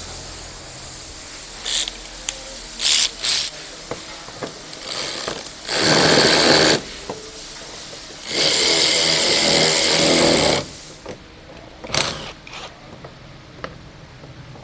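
Impact wrench run in bursts to tighten the steering rack's clamp bolts. There are a few short bursts, a run of about a second, a longer run of about two seconds, then one more short burst.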